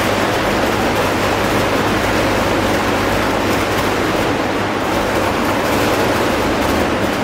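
Electric arc furnace in operation: the arcs give a loud, steady, rough roar with a low electrical hum beneath it.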